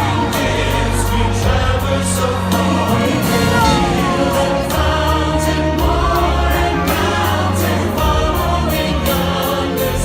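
A choir singing with instrumental accompaniment, in the style of gospel music, with a steady bass underneath.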